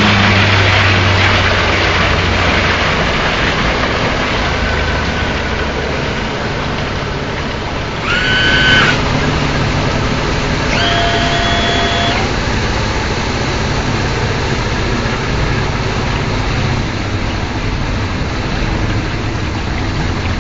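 Yamaha 115 hp outboard motor running steadily at speed with the boat on the plane, over the rush of water and wind. Two brief high-pitched tones sound near the middle.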